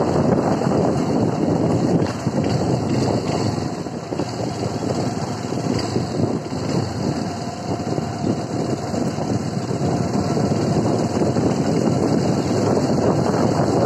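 Honda CRF150L single-cylinder engine running under way, mixed with wind buffeting the microphone. The level eases a couple of seconds in and builds again toward the end.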